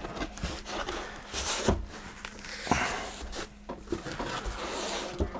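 Handling noises from working on a car-stereo head unit in a dash: scattered light clicks and knocks with short rustling scrapes.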